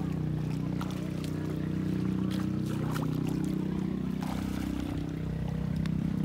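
Small engine running steadily, its pitch sagging a little and rising again near the end, with a few short water sounds over it.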